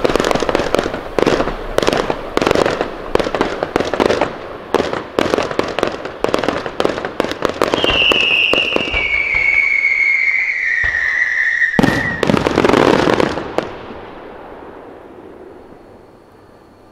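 Aerial fireworks going off: a dense run of rapid bangs and crackling, then a long whistle falling in pitch for about four seconds, ended by a sharp bang and a last burst of crackling before fading away.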